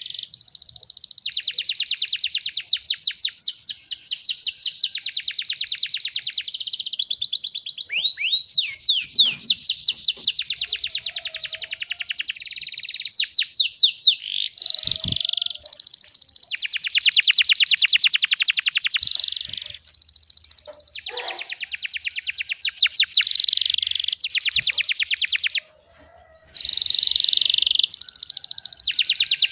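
Domestic canary singing long, rapid-fire trills of fast-repeated high notes, the dense 'tembakan rapat' style used as tutor song for training young canaries. Its phrases run several seconds each with short breaks between them, and there is one silent gap of about a second near the end.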